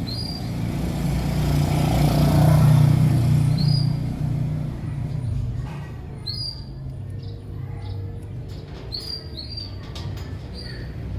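A passing road vehicle's low rumble swells over the first few seconds and then fades to a steady background hum. Over it come about six short, high lovebird chirps.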